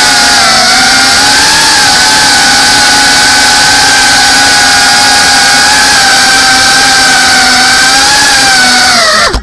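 FPV quadcopter's brushless motors and propellers whining at a steady, slightly wavering pitch over a loud airy hiss, recorded close by the drone's onboard camera mic. The sound cuts off abruptly right at the end.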